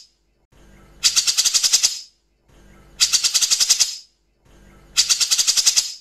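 Cucak jenggot (grey-cheeked bulbul) giving its harsh rattling 'tembak kasar' call, three times about two seconds apart. Each call is a fast, loud rattle about a second long, starting after a brief quieter lead-in.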